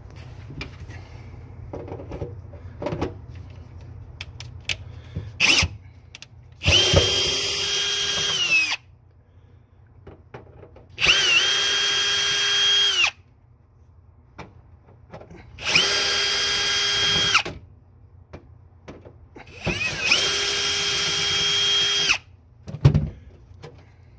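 Power drill running in four bursts of about two seconds each at a steady speed, backing out the screws of a shift boot ring, with small clicks and knocks between the bursts.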